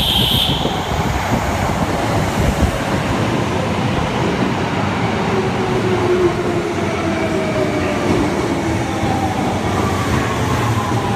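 Kintetsu 7000 series subway train running into the station and slowing. A short, high horn blast comes right at the start. Then comes a steady rumble of wheels and motors as the cars pass close by. From about halfway the VVVF inverter whine falls steadily in pitch as the train brakes.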